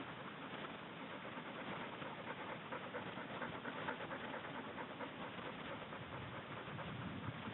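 A dog panting steadily and fairly quietly.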